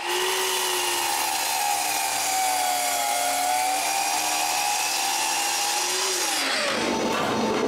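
A power tool cutting wood, its motor running at a steady pitch that sags slightly under load midway and then recovers, trimming off protruding parts. It stops about six and a half seconds in, and background music follows.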